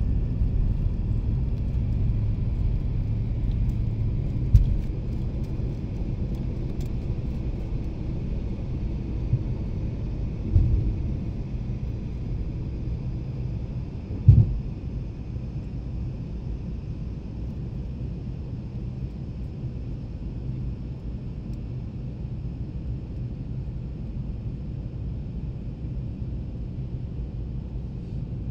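Airliner cabin noise during takeoff: a steady low rumble of engines and wheels on the runway, with three short thumps in the first half. After the last thump, about fourteen seconds in, the rumble turns slightly quieter and steadier as the plane climbs.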